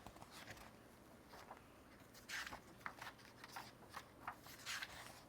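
Faint paper rustles and small clicks from a picture book being handled, with a couple of louder rustles about halfway through.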